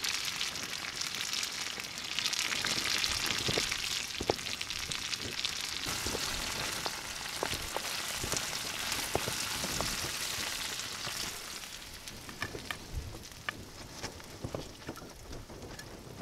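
Food sizzling in a frying pan on a small camp stove, with light clicks and scrapes from a wooden spoon stirring it. The sizzling drops off about three-quarters of the way through, leaving scattered clicks.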